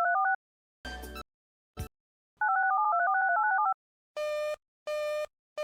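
Touch-tone telephone keypad dialing: a quick run of two-tone key beeps, a short burst of noise and a click, then a second run of key beeps. A busy signal then starts, beeping about once every three-quarters of a second.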